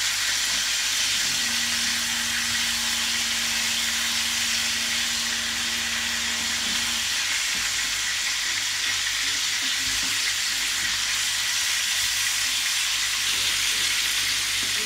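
Whole green bell peppers frying in a very hot frying pan: a steady sizzle as they blister, turned now and then with a spatula.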